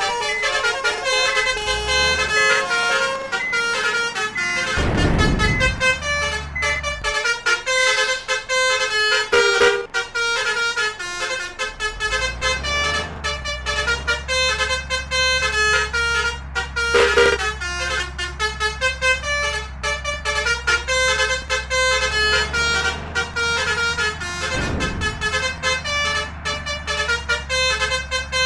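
Indonesian 'telolet' basuri multi-tone air horns on buses playing quick stepping tunes almost without pause, over the rumble of the buses' engines, which grows steadier about halfway through. A few short rushes of noise break in now and then.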